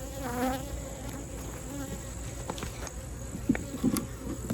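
Honeybees buzzing in a steady hum around an open hive. A few sharp clicks and soft knocks come in the second half, and a brief voice sound is heard just after the start.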